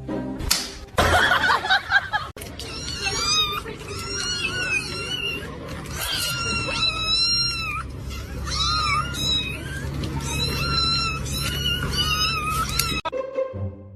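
A cat meowing over and over in short, high-pitched calls that bend up and down in pitch, over a steady low hum. A loud rush of noise comes first, near the start.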